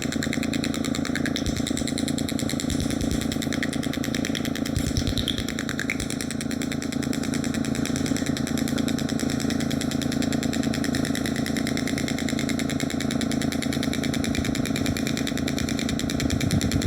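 Handheld shockwave therapy applicator running, firing a fast, steady stream of pulses as a rapid mechanical tapping buzz.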